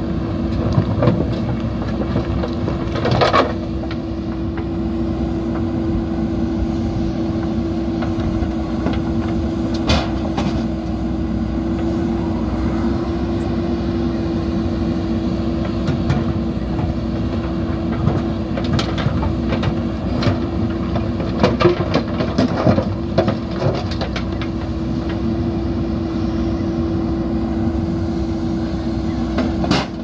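JCB 3DX backhoe loader's diesel engine running steadily under hydraulic load, with a steady hum through it. Stones knock and clatter against the backhoe bucket as it digs into the pile, in separate sharp knocks and a cluster of them about three-quarters of the way through.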